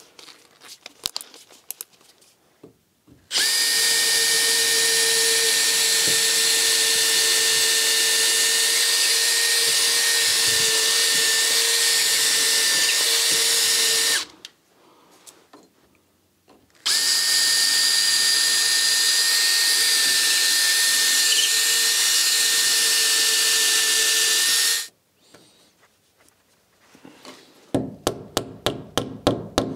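Cordless drill boring into a cellular (aerated) concrete block wall at a steady speed, in two long runs of about ten and eight seconds with a short pause between. Near the end, a hammer taps a plastic wall plug into the drilled hole in quick light blows, about four a second.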